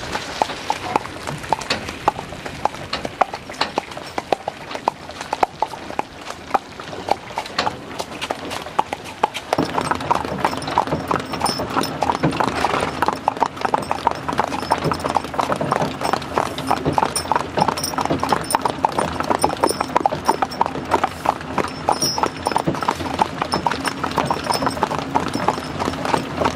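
Hooves of a pair of Hucul horses clip-clopping on a wet asphalt road as they pull a wooden wagon. The hoofbeats get louder about ten seconds in.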